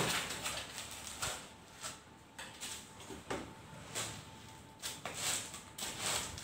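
Laptop packaging being handled: white foam end caps are scraped and pulled off, and the plastic-wrapped laptop sleeve rustles, in a series of short irregular scrapes and rustles. The crinkling is brightest about five and six seconds in.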